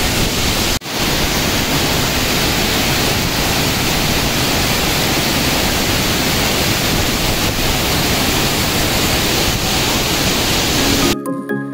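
Tukad Cepung waterfall, a steady loud rush of falling water that drops out for an instant about a second in. Background music with clear notes cuts in right at the end.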